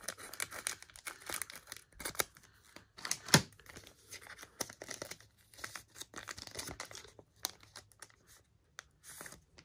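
Foil wrapper of a Mosaic basketball card pack crinkling and tearing as it is opened by hand: crackling on and off, with one sharp, louder crackle a little over three seconds in.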